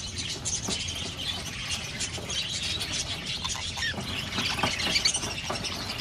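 A caged flock of budgerigars chattering: a steady, dense mix of short high chirps and squawks.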